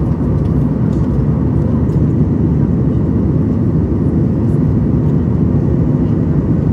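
Steady, deep rumble of cabin noise inside a Boeing 737 MAX 8 climbing out after takeoff: its CFM LEAP-1B turbofans and the rush of air past the fuselage.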